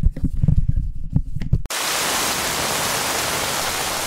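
A rapid run of low, irregular thumps that cuts off suddenly about a second and a half in, giving way to the steady hiss of heavy rain that continues unbroken.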